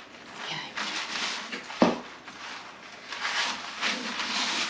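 Parchment paper rustling as hands work a flour-dusted piece of biscuit dough on it, with a single sharp thump on the table a little under two seconds in.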